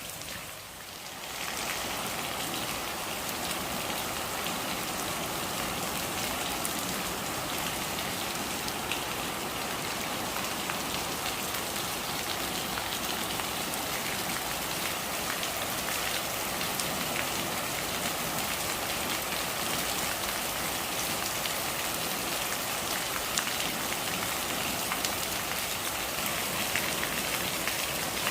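Steady rain falling, an even hiss with scattered sharper drop ticks; the level dips briefly about a second in, then holds steady.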